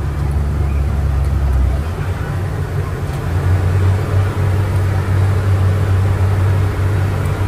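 Self-propelled crop sprayer's engine and drivetrain running steadily under load, heard from inside the cab as a deep drone. The drone shifts a little higher in pitch about two to three seconds in.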